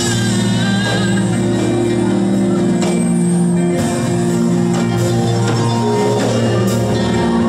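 Music: held low chords that change every second or so.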